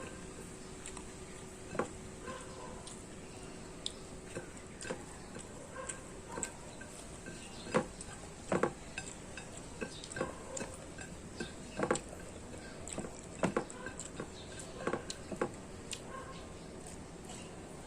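Eating at a plate: irregular light clicks and clinks of cutlery against dishes, some in quick clusters, with chewing between them.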